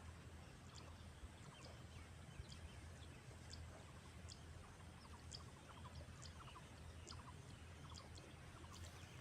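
Near silence: faint outdoor rural ambience with a low steady hum and soft, short high chirps repeating about twice a second.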